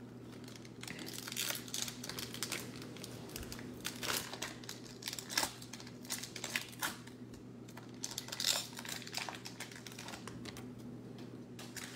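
Foil wrapper of a baseball card pack crinkling and tearing as it is peeled open by hand, in irregular crackles.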